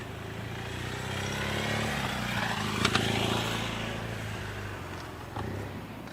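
A vehicle passing by, growing to its loudest about three seconds in and then fading away.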